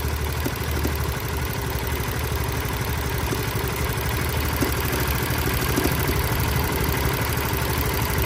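Honda Winner 150's single-cylinder engine idling steadily, with a faint clack now and then. The clacking is an abnormal noise from an engine that has run about 100,000 km.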